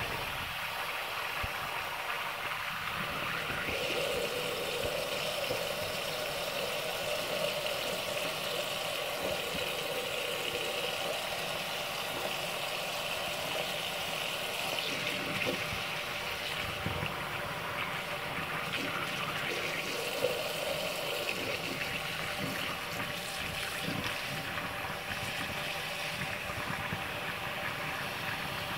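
Tap water running in a steady stream from a mixer tap into a ceramic bathroom sink and down the drain, its splash changing as a kitten paws at the stream. A single brief knock about twenty seconds in.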